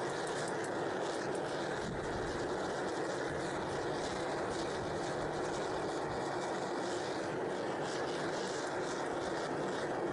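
Backyard metal-melting furnace running with a steady rushing roar while aluminium melts in its crucible, with faint scraping ticks from a steel skimmer stirring the melt.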